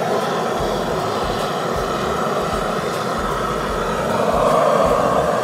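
Handheld propane searing torch (Sous Vide Gun) burning at full flame as it sears steaks on a griddle: a steady, loud rushing roar that swells a little about four seconds in.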